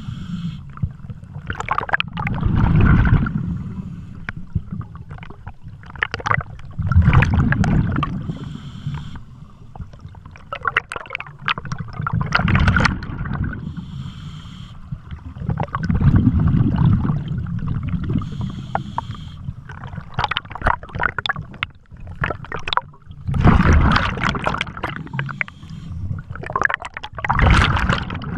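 Scuba diver breathing through a regulator underwater: exhaled bubbles rumble and crackle out about every four to five seconds, with a fainter hiss of the inhale between them.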